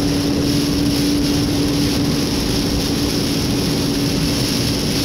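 Inside a car driving on a wet road in heavy rain: steady road and tyre noise with a constant low hum.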